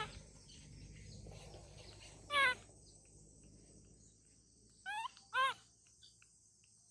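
Baby macaque giving three short, high-pitched cries, each rising then falling in pitch: one about two and a half seconds in and a quick pair about five seconds in. A steady high insect buzz runs underneath.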